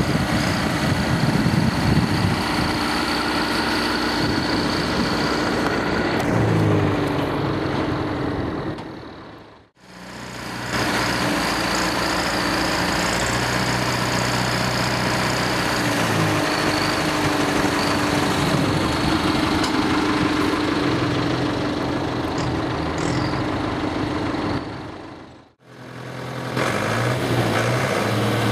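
Tractor engines running under load as they move a heavy house, their pitch shifting as the drivers change throttle. The sound fades out and back in twice, about a third of the way through and again near the end.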